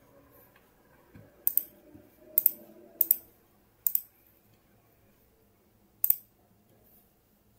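Computer mouse button clicking five times, each a sharp click heard as a quick close pair, mostly about a second apart with a longer gap before the last.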